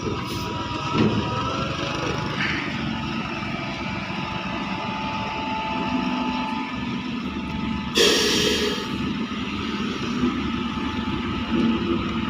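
A heavy vehicle's diesel engine running steadily, with a sharp hiss of released air, like an air brake, about eight seconds in.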